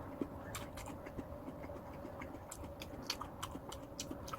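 A person chewing a sandwich, with soft, irregular mouth clicks.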